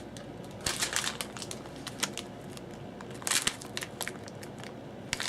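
Plastic soft-bait package crinkling as it is handled, in two short bursts of rustling, about a second in and again past three seconds, with small clicks between.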